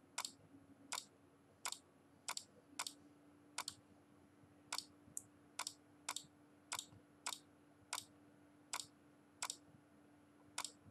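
Computer mouse button clicking, about sixteen short clicks at irregular spacing of half a second to a second, each click bucket-filling one red trace of the image with white. A faint steady hum runs underneath.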